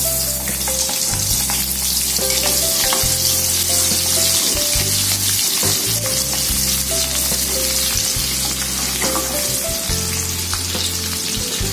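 Sliced shallots sizzling as they fry in hot oil in a wok, stirred with a metal spatula that clicks and scrapes against the pan. Background music plays underneath.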